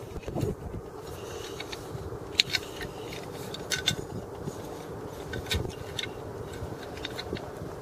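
Scattered handling clicks and light scrapes as a small LED work light and its cable are turned over in the hands, over a steady low background noise.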